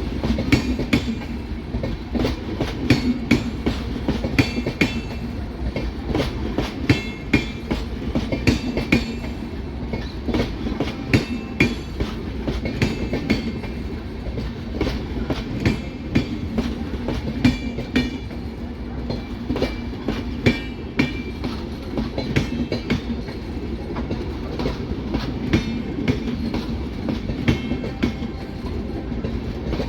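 Prayagraj–Bikaner Superfast Express running at speed: its wheels clatter over rail joints in a continuous run of sharp knocks over a steady low rumble.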